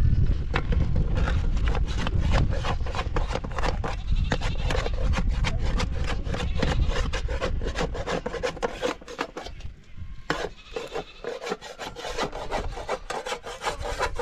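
Rapid, rhythmic rubbing strokes of wood, several a second, thinning out for a few seconds past the middle before resuming.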